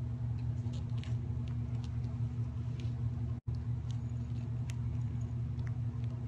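A steady low hum with faint scattered ticks, and a brief dropout in the sound about three and a half seconds in.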